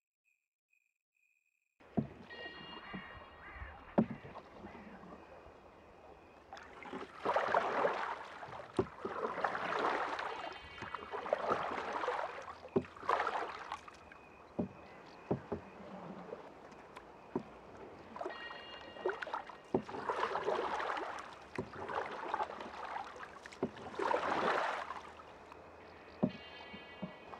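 Oars rowing a small boat on water: a swishing splash every two to three seconds, with sharp wooden knocks and short squeaks between the strokes.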